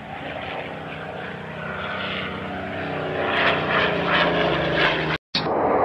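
Single-engine propeller plane flying low, its engine drone building steadily louder. Just after five seconds the sound cuts out abruptly and is replaced by a loud, even rushing noise.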